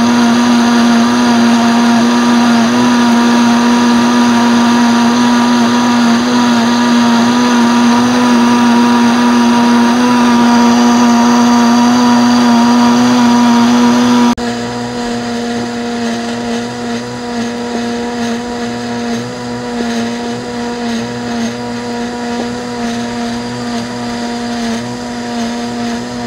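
Electric countertop blender running steadily, puréeing dried chiles and garlic into a pozole chile sauce. About halfway through the motor drops suddenly to a noticeably quieter hum and keeps running.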